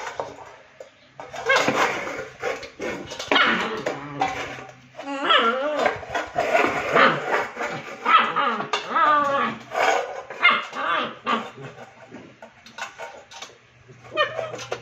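Rottweiler puppy barking, yipping and whimpering in repeated outbursts as it paws at an upside-down stainless steel plate it cannot turn over. The calls are those of a frustrated, angry pup, with a few knocks from the metal plate on the tile floor.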